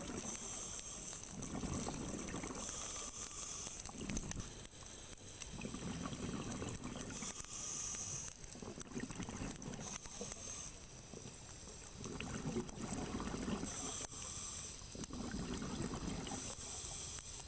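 Scuba diver breathing through a regulator underwater: a short hiss on each inhale, then a low burble of exhaled bubbles, repeating every few seconds.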